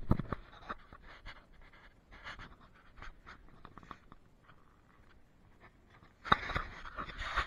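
Footsteps crunching on snow and snow-dusted concrete, with close scratching and rustling; the crunching grows denser and louder about six seconds in.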